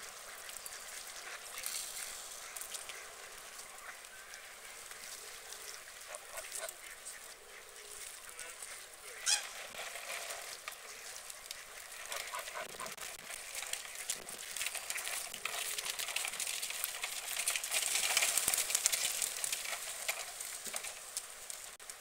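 Canada geese honking now and then over the splash and lap of water as the geese up-end to feed. One sharp noise stands out about nine seconds in, and the water noise grows louder near the end.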